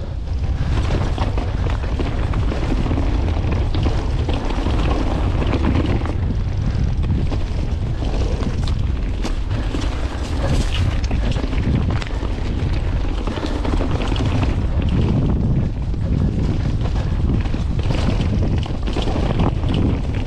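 Wind buffeting the microphone of a mountain bike descending a trail, with a steady low rumble of tyres and many short clicks and rattles from the bike over rough ground.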